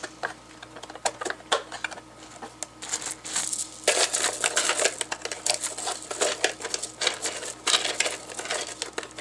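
Small biological filter media pieces clattering and rattling against the plastic media basket of an AquaClear hang-on-back aquarium filter as they are dropped in by hand. Scattered clicks at first, then dense rattling from about three seconds in.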